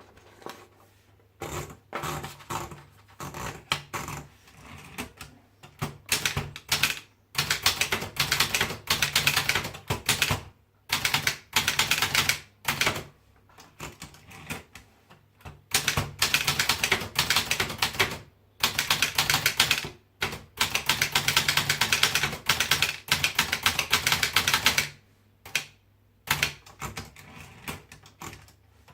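Brother typewriter being typed on in quick runs of keystrokes, each run a second or few long with short pauses between, over a faint steady low hum.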